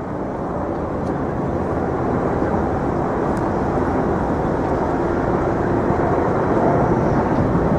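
Steady engine rumble from a passing vehicle, slowly growing louder.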